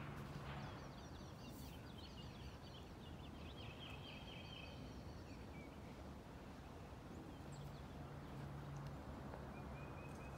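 Wild birds singing: a run of quick chirps and trills over the first six seconds and another call near the end, over steady outdoor background noise with a faint low hum.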